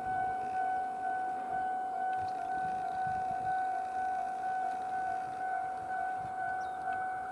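A railway level-crossing warning bell sounding as one steady, high electronic tone with a slight even pulse, over the low rumble of a Tobu 70000-series commuter train approaching on the track.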